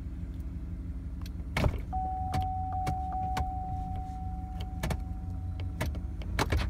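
Sharp irregular clicks and knocks from the column shift lever of a 2011 Chevy Silverado being handled, over the low hum of the truck's 5.3-liter V8 idling, heard inside the cab. A steady high tone sounds for about four seconds in the middle.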